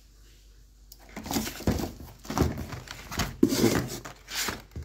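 Plastic blister packs and cardboard rustling and knocking as a hand rummages through a box of packaged fishing pliers, starting about a second in.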